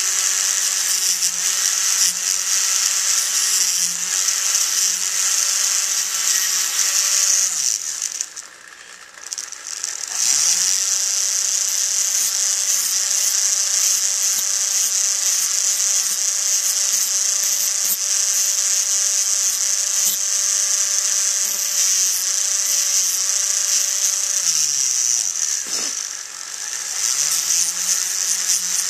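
Pen-style high-speed rotary tool with a thin abrasive cutoff wheel, running with a steady high-pitched whine as it cuts into a small metal ring. The motor runs down and stops about eight seconds in, starts again about two seconds later, and dips briefly once more near the end.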